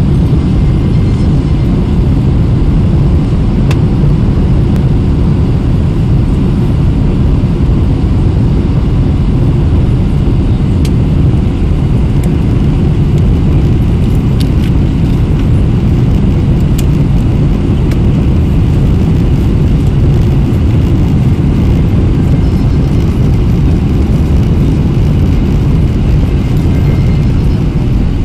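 Steady, loud low rumble of a Boeing 737-800's cabin on final approach with the flaps extended: engine and airflow noise heard from a seat over the wing.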